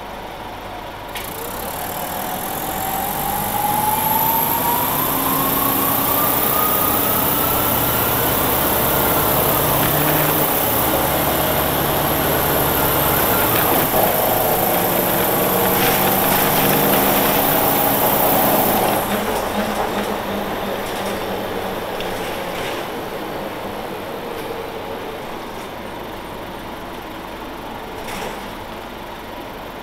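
1996 Nova Bus RTS-06 transit bus with a Detroit Diesel Series 50 engine and Allison automatic transmission pulling away and accelerating. A whine rises in pitch and the engine note steps at gear changes partway through. Near two-thirds of the way the throttle comes off and the sound eases down.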